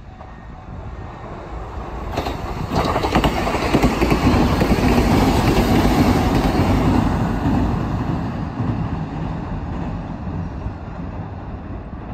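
Kintetsu Minami-Osaka Line electric train passing: the noise of the train swells about two seconds in with a few sharp clacks, is loudest near the middle, and slowly fades away.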